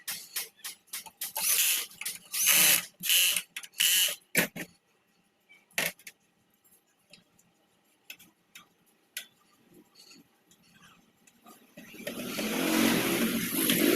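Work noises from repairing a small generator engine: a quick run of short, sharp scraping bursts, then scattered clicks, and a louder noisy sound building near the end.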